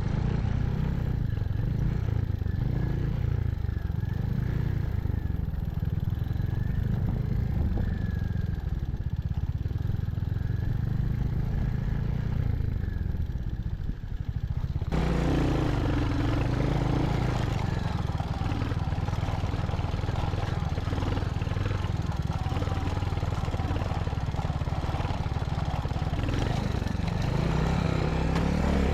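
Royal Enfield Hunter 350's single-cylinder engine running steadily as the bike rides along, with road and wind noise. About halfway through the sound changes abruptly and more hiss comes in.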